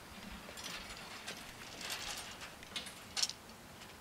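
Level-crossing barrier booms of a remotely operated request barrier rising, their drive mechanisms giving off scattered mechanical clicks and rattles. A sharper, louder click comes about three seconds in.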